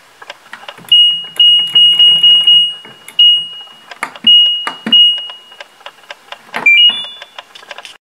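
Front-loading washing machine's control panel beeping as its buttons are pressed to set and start a wash: a series of short, single-pitch beeps with light button clicks, then a quick rising three-note chime near the end as the cycle starts.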